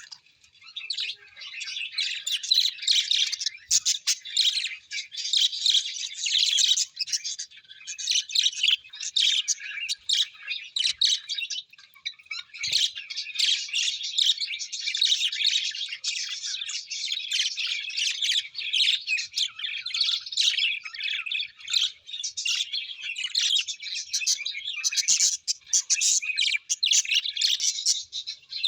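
Many small birds chirping and chattering at once, a dense, continuous overlap of short high calls.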